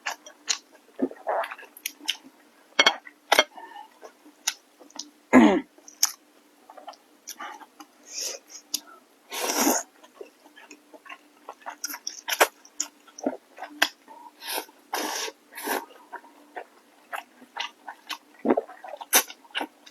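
Close-up eating sounds: mouth chewing, lip smacks and slurps of glass noodles and rice, in short irregular clicks with a few longer slurping bursts. A faint steady hum lies underneath.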